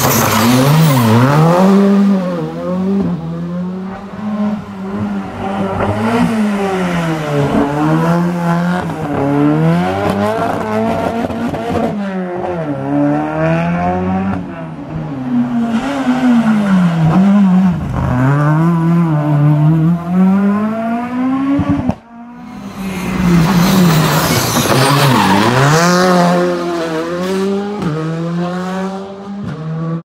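Rally cars passing one after another, among them a Skoda Fabia R5. Each engine revs hard, its pitch dropping sharply on each downshift into the corner and climbing again as the car accelerates away.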